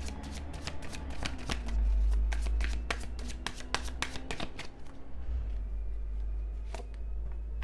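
Tarot cards being shuffled by hand: a dense run of quick card clicks for about five seconds, then just one more near the end, over a steady low hum.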